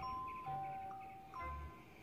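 Instrumental background music: a bell-like melody of held notes over a soft low bass beat.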